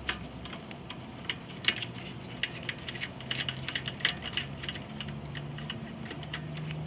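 Ratchet with a 3/8-inch socket clicking in short irregular runs while loosening the carburetor mounting bolts on a Briggs & Stratton Quantum mower engine.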